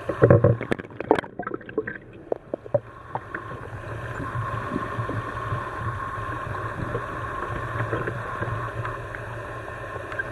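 Muffled underwater sound from a camera submerged in a lake: a run of sharp knocks and sloshes in the first three seconds, then a steady hum with a constant faint whine.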